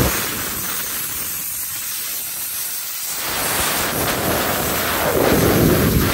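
Compressed-air blow gun blowing a steady jet of air over hydraulic hoses and fittings to clear off sawdust. The hiss runs without a break and grows louder in the second half.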